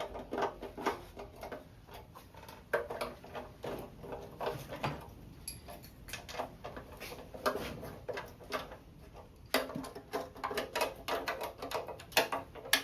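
Hand tools clicking and ticking on oil pan bolts as they are snugged down by hand, not torqued: many quick, irregular light clicks with short pauses.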